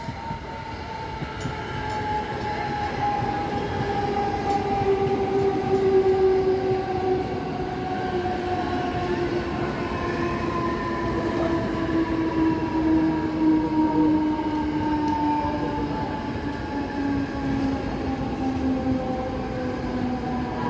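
Mumbai suburban electric multiple-unit local train passing close by: the wheels rumble on the rails under a whine from the traction motors that falls slowly and steadily in pitch. The sound swells over the first few seconds as the train draws near, then stays loud as the coaches roll past.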